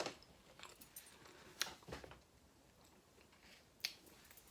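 A few faint, sharp clicks and taps, about four of them spread out, with quiet between.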